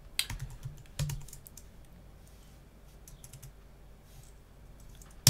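Keystrokes on a computer keyboard: a few sharp taps near the start and about a second in, fainter scattered taps after that, and one loud click at the very end.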